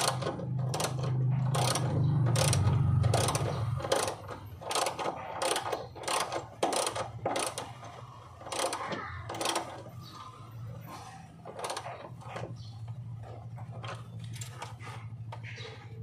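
Ratchet wrench clicking in quick runs as it turns the seat belt's anchor bolt on a car's B-pillar. The clicks thin out near the end. A steady low hum runs underneath and is loudest in the first few seconds.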